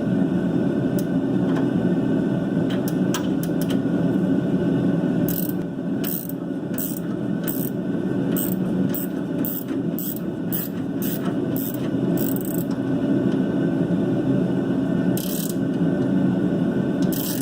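Hand ratchet turning a shock-absorber mounting nut on a 1990 Dodge Dakota. About five seconds in comes a run of short sharp clicks, two to three a second, for about seven seconds, then two more near the end, over a steady low background noise.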